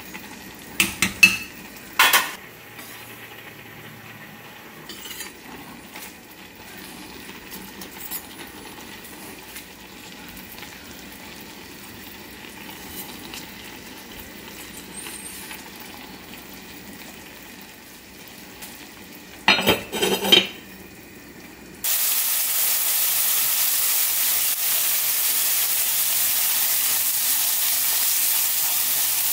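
A wooden spoon knocks a few times against an enamelled cast-iron pot as rice is stirred, then a quiet stretch with light taps and a brief clatter of utensils. About three-quarters of the way through, loud steady sizzling starts suddenly: sliced onion, carrot and meat stir-frying in a wok for japchae.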